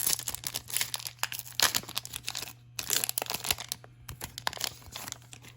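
Plastic wrapper of a Topps Chrome baseball card pack being torn open and crinkled by hand, a run of irregular sharp crackles that thins out near the end.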